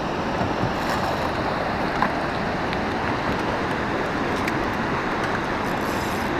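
Steady rushing noise of wind and river water around a drifting fishing boat, with no pitched engine tone in it.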